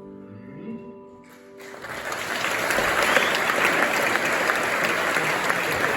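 The band's last chord ringing out and fading, then an audience breaking into applause about a second and a half in, which carries on steadily.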